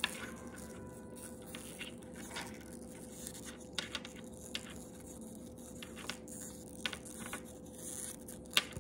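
Hands handling a small leather strap and its fittings on a wooden tabletop: light rubbing with scattered small clicks and taps, and one sharper click near the end. A faint steady hum underneath.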